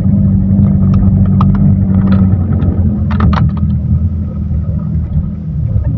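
Vehicle engine running steadily, heard from inside the cab while driving slowly over a rough dirt road, with a few knocks and rattles about one second and three seconds in.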